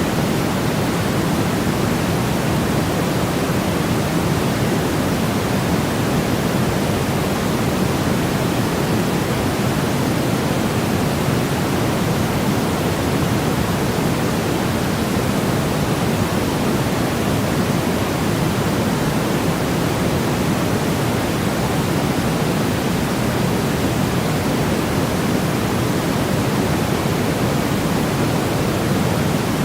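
A white-noise track: a steady, unchanging hiss, fuller and deeper in the low end than at the top, with no events or changes.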